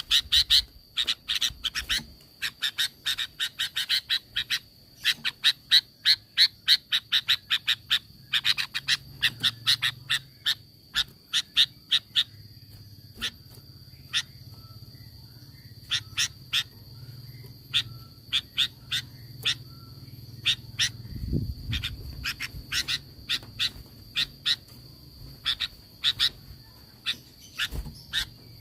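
Sooty-headed bulbul giving rapid chattering call series: bursts of short, sharp notes several per second, with a lull in the middle. Under it runs a faint steady high whine, and there is a low thump about two-thirds of the way through.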